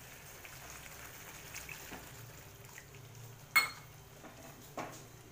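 A wooden spatula stirring a thick, simmering gravy in a metal kadhai, with soft scraping and bubbling. The spatula knocks sharply against the pan about three and a half seconds in, and more softly near the end.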